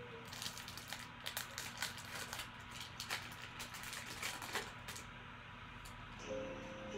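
Foil wrapper of a Panini Prizm football card pack being handled and torn open: a quick run of small crackles for about five seconds, then it goes quiet.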